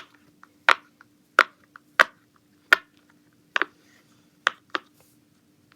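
Mini glitter cactus Pop-It fidget toy having its silicone bubbles pressed through one by one. It gives about eight short, sharp pops at uneven intervals, two of them in quick succession midway.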